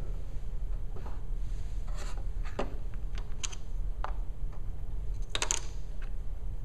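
Small cardboard boxes being handled, slid and set down on the plastic top of a digital piano: a scattering of light taps and scrapes, with a slightly longer scrape about five and a half seconds in.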